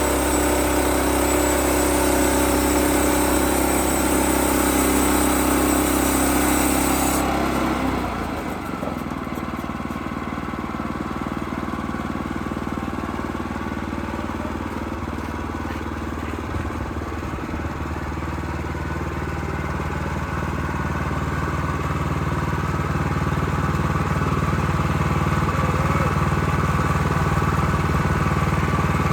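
Bushlander HM122 sawmill's engine running steadily. About eight seconds in it drops to a quieter, lower run and loses its high hiss, then builds back up toward the end.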